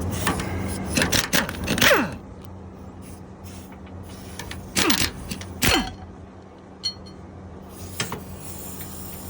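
Pneumatic air gun (impact wrench) fired in several short bursts, each whine falling in pitch as it winds down, with a few clicks and a steady low hum underneath.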